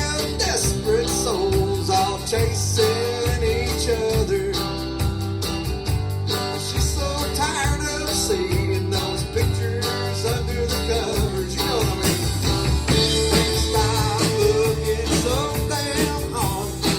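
Live country-rock band playing a song: guitars over a steady bass, with a melodic line that bends in pitch above them.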